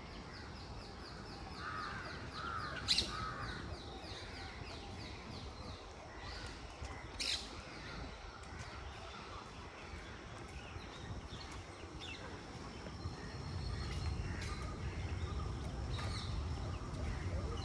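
Birds calling, with crows cawing and a fast high trill over the first few seconds, and two sharp loud calls about three and seven seconds in. A low rumble swells in the background in the last few seconds.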